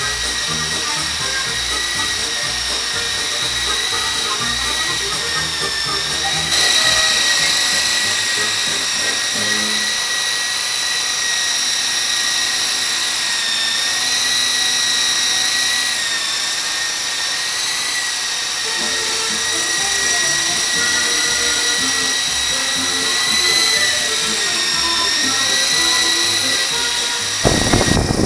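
Electric motors and rotor gearing of an E-Sky Lama v4 coaxial RC helicopter, a steady high whine that wavers slightly with the throttle and gets louder about six and a half seconds in. Near the end a short rough noise sounds as the whine fades.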